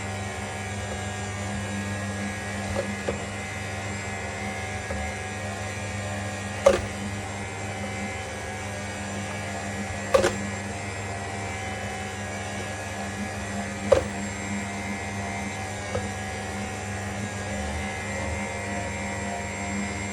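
Cold-press slow juicer's motor running with a steady hum, with a sharp crack every few seconds, the loudest about a third and half way through.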